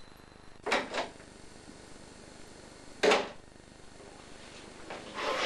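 A few short knocks and bumps of things being handled in a small room: two close together about a second in, and a louder one about three seconds in.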